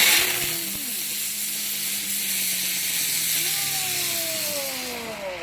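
A small consumer ground firework burning with a loud, steady hiss that starts abruptly and dies away near the end, with several whistling tones sliding down in pitch over it.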